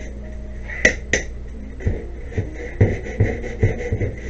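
Hand sanding of a TRS-80 Model III's plastic case: sandpaper rubbed back and forth over the case in strokes, each with a dull knock, about two a second. Two sharp clicks come about a second in.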